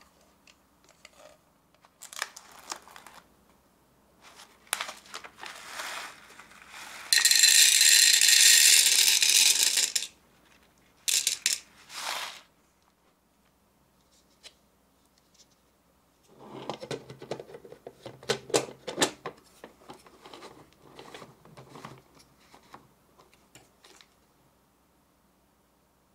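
Handling sounds from a plastic toy popcorn maker and its dry popcorn kernels. There is a loud rustling rush of about three seconds near the middle, then a long run of rattling clicks from the kernels and plastic parts.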